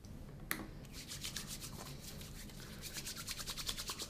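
One press of a pump bottle of alcohol-based hand rub about half a second in, then hands rubbing together briskly in quick, even strokes to spread the rub.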